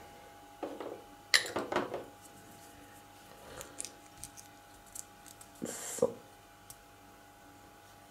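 Small model parts handled and pressed together by hand, giving light clicks, taps and rustles, with a busier cluster of clicks about a second and a half in and another about six seconds in. The plastic cap is screwed back onto a small glass glue bottle.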